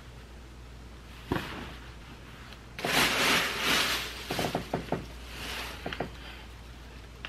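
Cloth rustling close to the microphone as a shirt is pulled on over the head and straightened. There is a single knock about a second in, and a quick run of small taps follows the loudest rustle.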